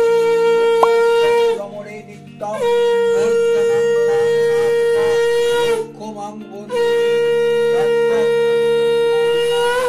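Conch shell (shankha) blown in three long blasts with short breaks between, each a steady bright tone that bends up slightly at its end, sounded as part of the puja worship.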